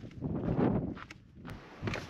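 Footsteps on a stony mountain path, two scuffing steps about a second and a half apart, with a sharp click between them and a low wind rumble on the microphone.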